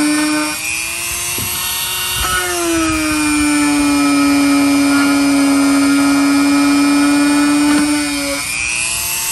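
TACKLIFE RTD35ACL corded rotary tool running at speed with a steady high whine, its pitch stepping slightly up or down a few times.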